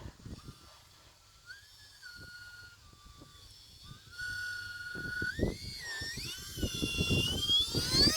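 Whine of a small RC jet's electric ducted fans, the UMX A-10, as it flies. The thin whistling tone holds steady at first, gets louder about halfway through and climbs in pitch near the end. Gusts of wind rumble on the microphone underneath.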